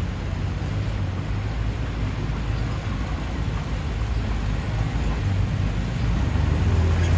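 Heavy diesel construction machinery engine running with a steady low hum, growing louder after about five seconds.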